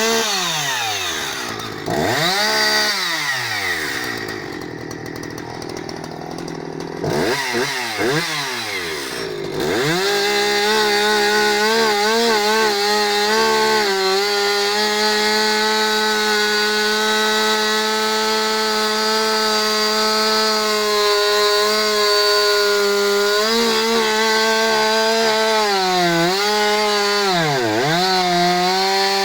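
Husqvarna 359 two-stroke chainsaw blipped up and down twice, with a quieter stretch between, then held at full throttle from about ten seconds in, its pitch steady apart from two short dips near the end, typical of the chain biting into firewood.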